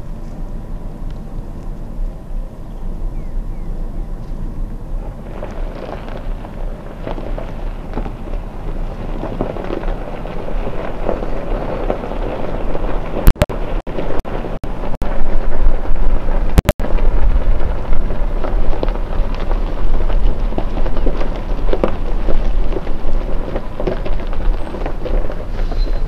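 Safari vehicle engine running as it moves, under a heavy low rumble of wind buffeting the microphone. The rumble grows louder about five seconds in, and a few sharp clicks break through around the middle.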